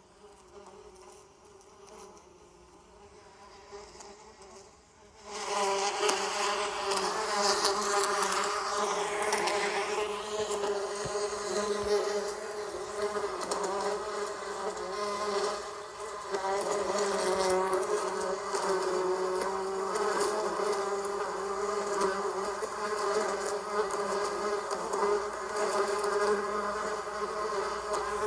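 Bees buzzing: a faint, steady buzz for the first five seconds or so, then a much louder, fuller buzz from about five seconds in, wavering in pitch.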